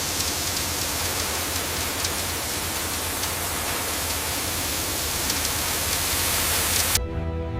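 Loud, steady rushing noise over a low hum, which cuts off suddenly near the end.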